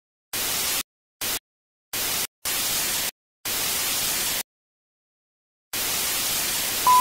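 Television static hiss cut on and off in six uneven bursts with dead silence between them. A steady, louder high beep tone joins the hiss just at the end.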